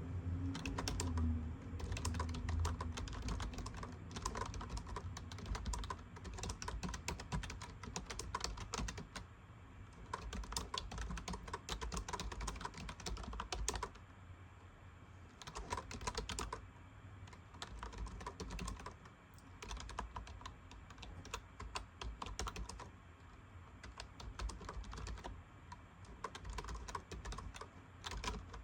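Typing on a computer keyboard: rapid runs of key clicks, with a few short pauses about halfway through.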